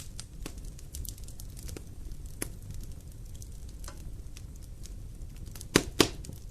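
Fire burning in a fireplace: a low steady rumble with scattered crackles, and two sharp pops close together near the end.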